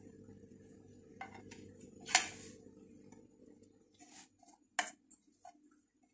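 Round metal cookie cutter clicking and scraping against a ceramic plate as it is pressed through slices of soft white bread: a few scattered sharp clicks, the loudest about two seconds in.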